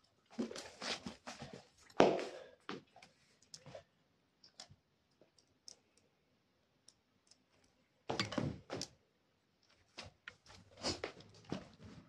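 A Labrador retriever moving about on a tiled floor close to the microphone: scattered clicks and knocks with short rustling bursts, the loudest a thump about two seconds in.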